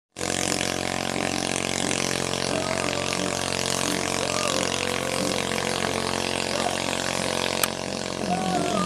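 Small petrol engine of a racing bangka, fitted with a 28mm UCR carburettor on test, running steadily at speed across the water. A single sharp click comes near the end.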